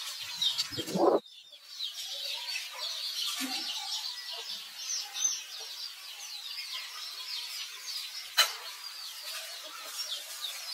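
Birds twittering in a dense, unbroken chorus of short high chirps. About a second in, a louder, lower sound rises and cuts off abruptly, and a single sharp click comes near the end.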